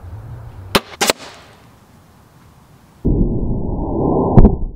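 Crossbow shot with a broadhead bolt: two sharp cracks about a third of a second apart. About three seconds in, a deep, muffled, slowed-down rush begins, with a loud thud near the end as the bolt strikes the chainsaw chaps in slow-motion playback.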